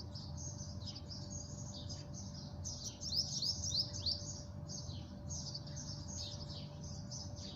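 Small birds chirping continuously in quick, high twittering calls, some sweeping up and down in pitch, over a faint steady hum.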